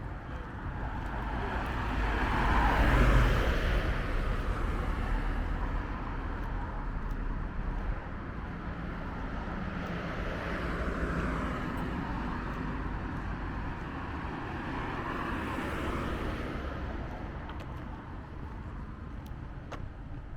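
Road traffic: cars passing one after another, each swelling and fading as a whoosh of tyres and engine. The loudest pass comes a few seconds in, and two more follow.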